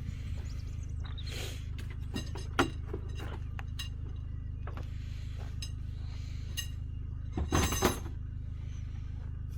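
Metal clinks and knocks over a steady low hum: one sharp ringing knock about two and a half seconds in, and a cluster of loud ringing clanks about seven and a half seconds in.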